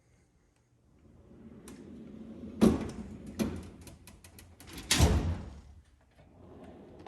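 Metal drawer of a Snap-on toolbox sliding on its runners and banging to a stop with a loud clack, twice (about two and a half and five seconds in), with lighter metallic clicks and rattles in between.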